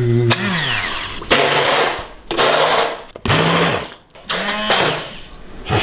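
Hand-held stick blender puréeing chunky sweet potato soup in a bowl, switched on in about five short bursts, the motor pitch rising and falling away with each one.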